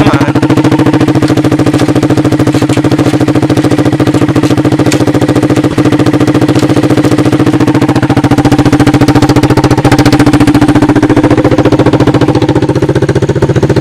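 Honda TRX200SX ATV's single-cylinder four-stroke engine running loud and steady as it drives the converted golf cart along.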